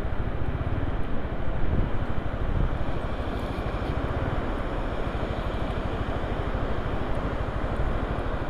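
Strong wind rushing over the microphone: a steady noise with a heavy, fluttering low rumble.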